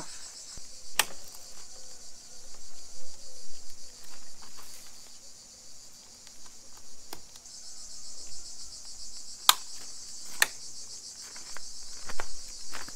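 A steady, high-pitched insect chorus, weaker for a few seconds in the middle and then stronger again. A few sharp clicks and knocks cut through it, the loudest about nine and a half seconds in.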